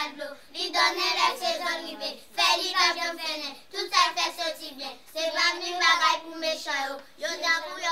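A group of young children singing together in unison, in phrases of a second or two with short breaks between them.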